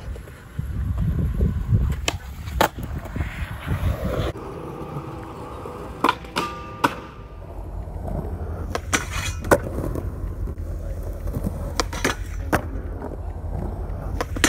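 Skateboard wheels rolling on concrete with a steady rumble, broken by several sharp clacks of the board popping and landing.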